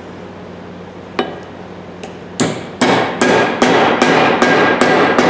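A small hammer tapping a wooden shim into the eye of a brass sledgehammer head to set the handle. There is one light tap about a second in, then a steady run of eight sharp, ringing strikes, about two and a half a second.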